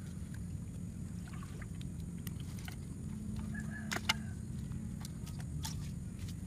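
Steady low rumble of wind on the microphone, with scattered clicks and rustles as a bamboo fish trap is handled in the wet grass; one sharper click about four seconds in.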